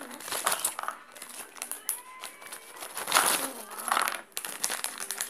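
Shiny foil-lined plastic cookie packet crinkling as it is handled and scrunched in the hands, in irregular crackling bursts, loudest about three seconds in and again about a second later.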